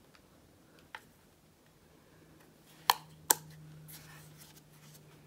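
Small clicks from a Canon EOS M50 mirrorless camera body being handled: a faint click about a second in, then two sharper clicks less than half a second apart near the middle.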